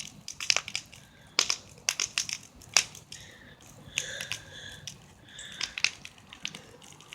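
Large wood bonfire burning, with irregular sharp crackles and a few louder pops from the burning wood.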